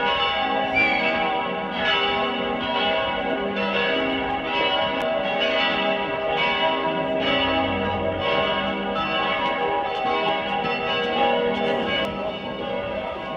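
Church bells pealing: several bells struck over and over in overlapping succession, their many ringing tones layered into a continuous clangour.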